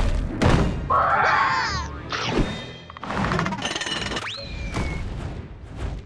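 Cartoon soundtrack: music mixed with comic sound effects, among them thuds and a whistle-like glide that rises and then falls about four seconds in.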